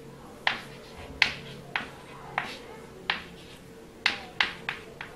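Chalk writing on a blackboard: a string of short, sharp taps, about eight, as each chalk stroke lands, with brief scratches trailing some of them.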